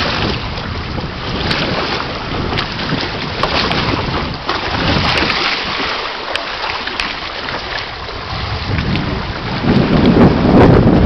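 Wind buffeting the microphone over water rushing and slapping past the hulls of a small sailing catamaran under way, with a louder gust near the end.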